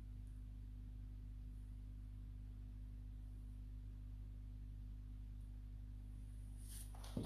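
Steady low hum of room tone, with one brief scuff near the end.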